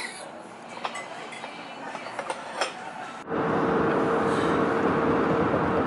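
Restaurant table sounds with a few light clinks of dishes, then an abrupt cut about three seconds in to a steady, louder rush of road noise from a car driving on a highway, with a steady hum through it.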